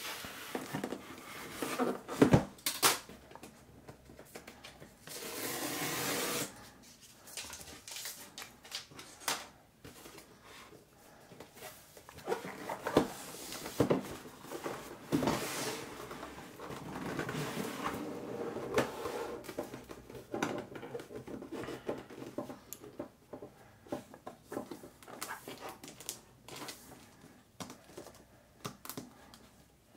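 A cardboard laptop box being cut open, turned over and unpacked by hand: scattered knocks, scrapes and rustles of cardboard and paper, with a longer scraping hiss about five seconds in.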